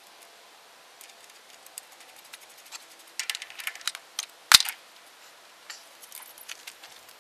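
Light metallic clicks and clinks of hand-fitting parts on a small engine's flywheel hub as the flywheel is seated on the crankshaft and its nut is started by hand. The clicks cluster a few seconds in, with one sharper click about four and a half seconds in.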